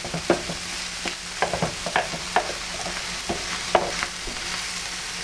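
Egg and vegetables frying on an electric griddle plate with a steady sizzle, while a spatula stirs and scrapes them, giving irregular short clicks and scrapes against the plate.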